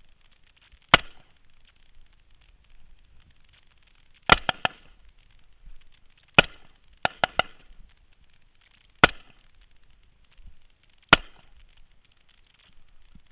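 Rifle shots, about ten: single shots spaced a few seconds apart and two quick strings of three, each shot with a short ringing tail.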